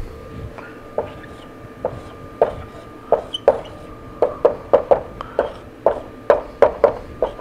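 Marker tapping and knocking on a whiteboard while letters are written: a string of short, sharp taps, a few at first, then coming faster in the second half. A faint steady hum runs underneath.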